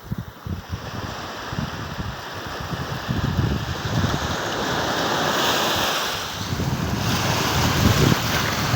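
Ocean surf: waves breaking and washing in, swelling louder over several seconds with a hissing wash, over a low uneven rumble.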